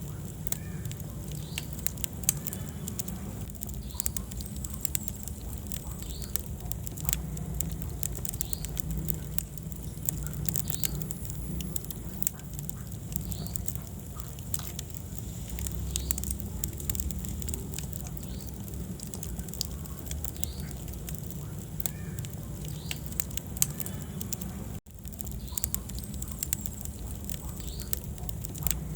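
Wood fire in a fireplace crackling and popping, with sharp irregular snaps over a steady low rumble of the flames and faint short hissing squeaks from the burning logs. The sound cuts out for a split second near the end.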